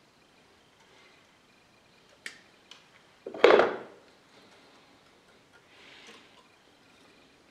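Handling noise from the wooden frame of a homemade hot-wire foam cutter: two light clicks, then one loud brief knock and rub close to the microphone, then faint scuffing.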